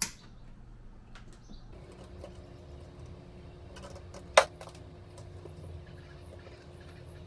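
Wire cutters snipping through electrical wires: a sharp snip right at the start and a louder one about four seconds in, with a faint steady hum underneath.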